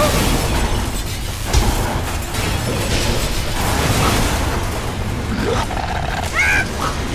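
Soundtrack effects with music: a steady low rumble, a sharp thump about a second and a half in, and a short rising-and-falling cry near the end.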